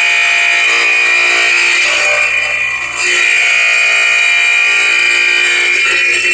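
Skilsaw wet tile saw's diamond blade cutting into a ceramic tile: a loud, steady high-pitched whine that dips briefly about three seconds in.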